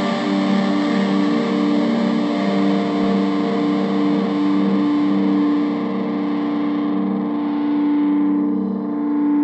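Epiphone Les Paul Special electric guitar played through distortion: a chord struck just before and left to ring out, held steady, its bright top end fading away over the last few seconds.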